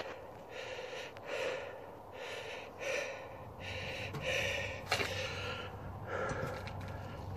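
A person breathing hard close to the microphone, with quick, heavy breaths about once a second, out of breath from exertion. A short sharp click about five seconds in.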